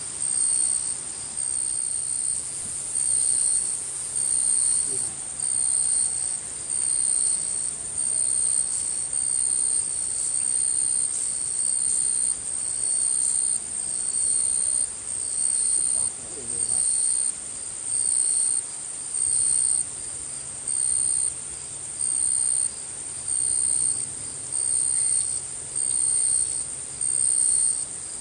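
Jungle insects calling in a shrill, high-pitched pulsing chorus, about one pulse every second and a half.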